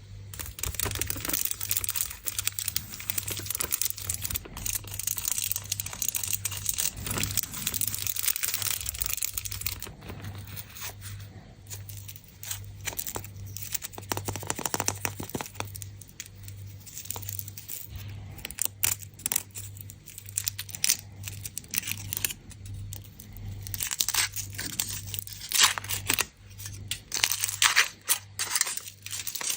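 Foil and plastic wrappers of chocolate eggs being torn open and crinkled by hand: a dense run of irregular rustles and crackles, busiest at the start and again near the end.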